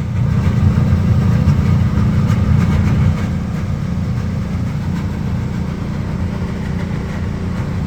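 Refrigeration unit of a walk-in cold store running with a steady low hum. It is somewhat louder for the first three seconds, then settles.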